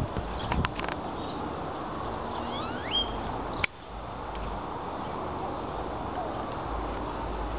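Outdoor ambience: a steady hiss with wind rumbling on the microphone. There are a few sharp clicks near the start and another at just under four seconds. A bird calls with a couple of quick rising chirps about three seconds in.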